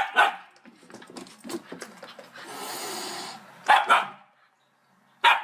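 A dog barking in short separate barks: one right at the start, two close together nearly four seconds in, and another at the very end, with soft breathy noise between them.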